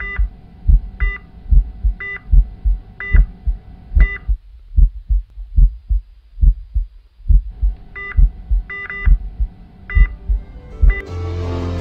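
Heartbeat sound effect, a low lub-dub about once a second, with a cardiac monitor's short beep and steady hum in time with each beat. The beeps and hum stop for about three seconds in the middle, leaving the heartbeat alone, and then return. Music comes in near the end.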